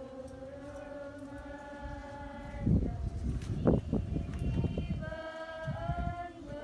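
A group of voices singing together in long held notes that step from pitch to pitch. Loud low rumbling bursts cut in about a third of the way through and again near the end.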